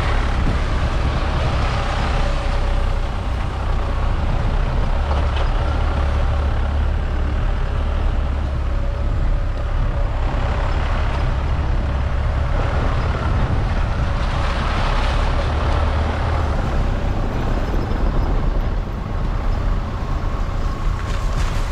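Off-road vehicle's engine running steadily as it drives along a rutted dirt track, heard from on board the vehicle.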